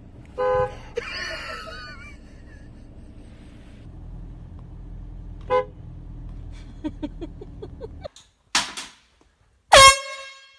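Air horn blasts: a short toot about half a second in, another brief one midway, and a loud blast near the end whose pitch jumps up as it starts.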